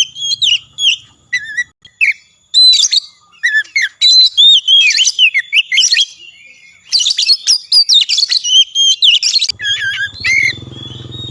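Oriental magpie-robin (kacer) in full song: loud, varied whistled phrases with quick swoops up and down in pitch, delivered in bursts with short pauses. A low steady hum comes in near the end.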